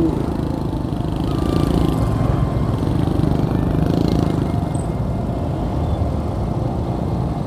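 Motorcycle engine running steadily while riding, under a constant low rumble of wind buffeting the phone's microphone.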